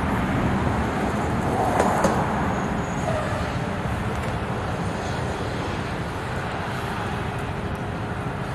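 Steady low outdoor rumble, like distant road traffic.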